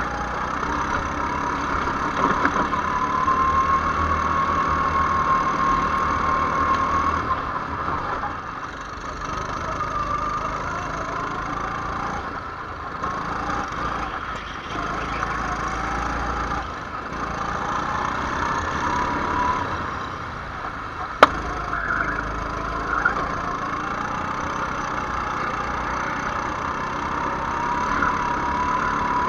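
Go-kart engine heard from the driver's seat, its pitch rising as it accelerates and dropping as the throttle is lifted, several times over. A single sharp click about two-thirds of the way through.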